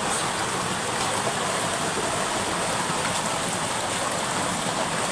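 Water gushing out under a metal floodgate and rushing over a concrete channel: a steady, even rush of churning water.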